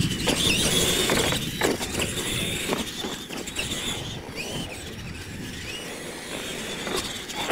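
Radio-controlled monster trucks racing on dirt: their electric motors and gearboxes whine, rising and falling in pitch with the throttle, over tyre and gravel noise. Sharp knocks in the first second and a half as the trucks land from jumps.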